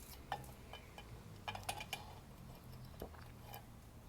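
Faint, scattered light metallic clicks and taps of drum brake shoes and return springs being handled and fitted by hand.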